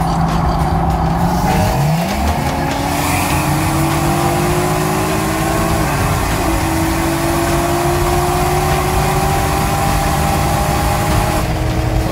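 A car engine under hard acceleration, its pitch climbing steadily with an upshift about six seconds in, over heavy wind and road rush.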